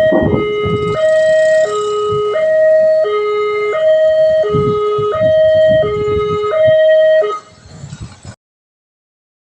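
Railway level-crossing warning alarm sounding a loud two-tone hi-lo signal, each tone about two-thirds of a second, with a low rumble underneath. It stops about seven seconds in.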